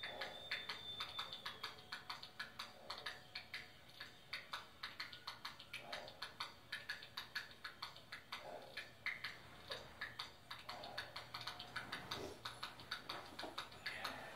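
Faint tarantella music, mostly its tambourine beating a quick, even rhythm of about four strokes a second.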